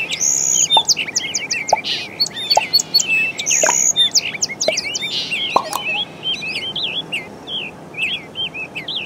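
Several birds chirping in a busy chorus of short, high rising and falling calls, thinning a little in the second half.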